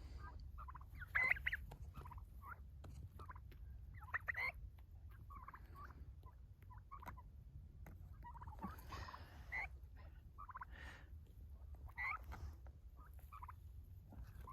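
A flock of Royal Palm turkeys calling close by: many short, scattered calls, the loudest about a second in.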